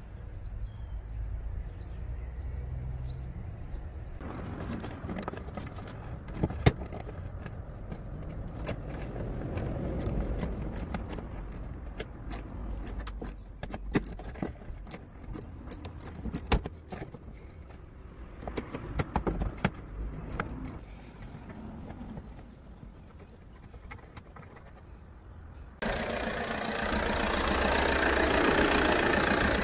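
Metal clicks and clinks of a socket wrench and loose sockets, irregular, as fasteners in the wheel-arch liner are worked. Near the end it cuts suddenly to a louder steady rushing noise.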